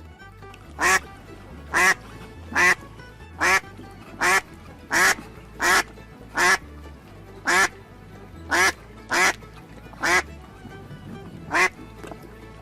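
A duck quacking over and over, about thirteen loud quacks spaced roughly a second apart, over background music with a low bass line.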